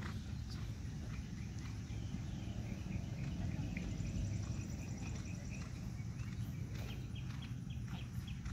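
Outdoor ambience: a low steady rumble, with faint high insect chirps repeating about four times a second near the end.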